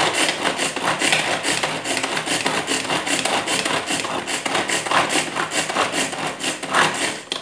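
Hand-operated food chopper mincing dry onions, its blades whirring and rattling in quick, evenly repeated strokes. The chopping stops suddenly near the end, once the onions are fine enough.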